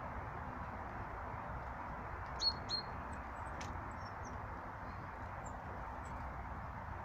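Small birds at a feeder chirping: two sharp, short high chirps close together about two and a half seconds in, then a few faint chirps, over a steady low rushing background.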